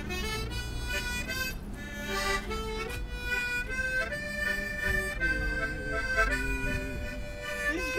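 Multi-key harmonica played as a slow tune: held notes and chords that change pitch about every half second to a second.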